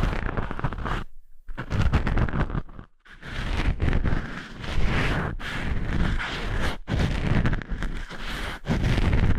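Close-miked ASMR rubbing and scraping noises with a low rumble, in stretches broken by brief pauses about a second in and again about three seconds in.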